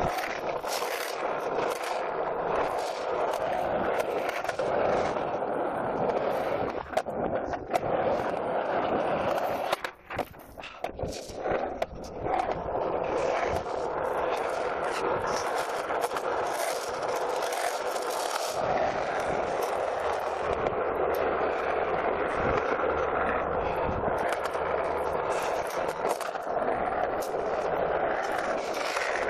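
Skateboard wheels rolling on a concrete skate-park surface, a steady grinding roll, broken about ten seconds in by a few sharp clacks and a brief lull in the rolling noise.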